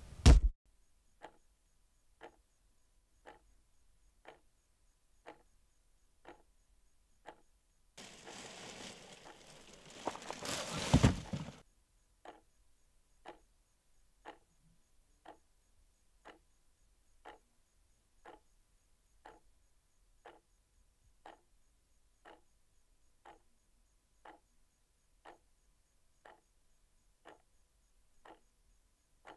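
A clock ticking steadily, about once a second. It opens with a sharp, loud impact, and about eight seconds in a stretch of rushing noise builds to a loud thud before the ticking returns.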